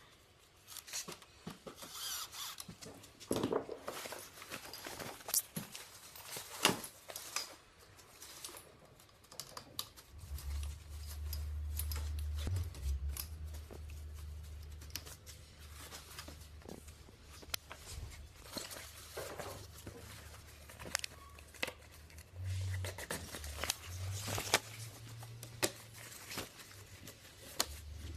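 Handling noise from assembling a patio umbrella: scattered clicks, knocks and rustles as the plastic hub and aluminium ribs are fitted, then rustling of the fabric canopy near the end. A low rumble runs through the middle stretch.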